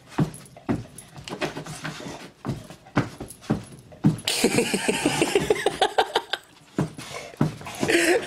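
A bulldog pouncing and scrambling on the floor after a laser dot: repeated thumps and knocks of its paws and body, with a stretch of noisy, rapid breathing about four seconds in.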